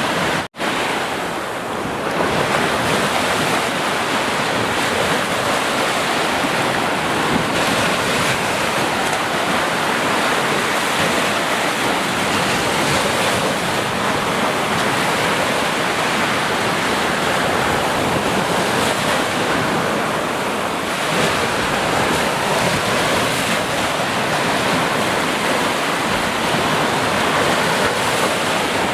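Sea surf: waves washing and breaking in a continuous, steady rush, with a brief dropout about half a second in.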